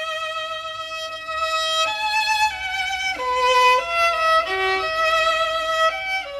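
Music over end credits: a violin playing a melody of held notes with vibrato, moving up and down about one note a second.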